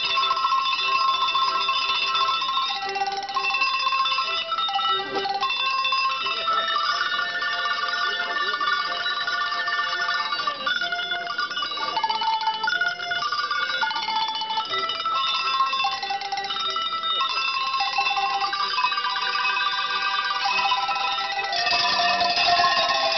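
Tuned cowbells of graded sizes, rung by hand in turn by a row of performers to play a melody, the notes ringing on and overlapping. Near the end the sound grows fuller and a little louder.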